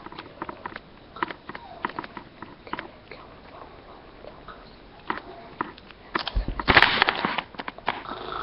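Snoring and snuffling breaths with small clicks, and one louder rasping snore about six and a half seconds in.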